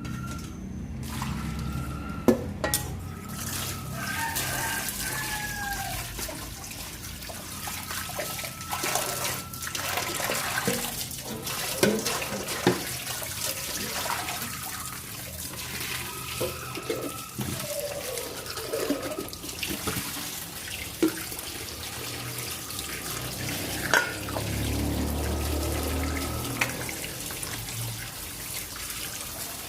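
Water running steadily while feeding-bottle parts are rinsed under it, with occasional sharp knocks from the items being handled.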